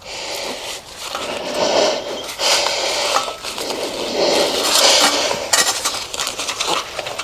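Hand work on a backhoe's fuel filter housing: irregular clinks and scrapes of metal and plastic parts being handled, with the engine off.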